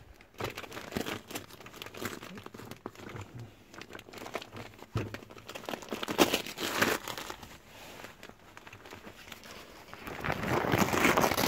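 Christmas wrapping paper crinkled and torn open by hand, an irregular run of crackles and rips, loudest about six seconds in and again near the end.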